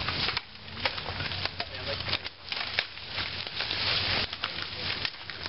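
Dry brush and leaves rustling and crackling as they are handled, with frequent sharp snaps and clicks of twigs.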